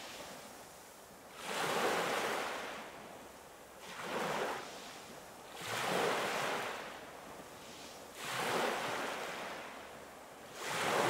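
Sea waves breaking and washing on a shore, five swells of surf rising and falling about every two to two and a half seconds.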